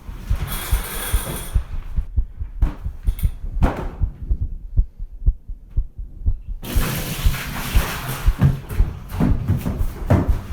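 A pounding heartbeat sound effect of fast, evenly spaced low thumps, used as a suspense cue. Bursts of hissing, rustling noise come over it, the longest in the second half.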